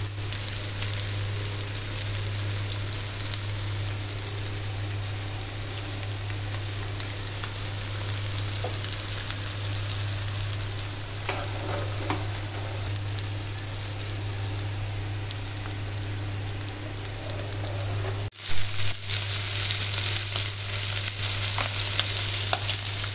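Masala-coated fish pieces shallow-frying in coconut oil, a steady sizzle over a constant low hum. About 18 s in the sound drops out for a moment and comes back louder and brighter.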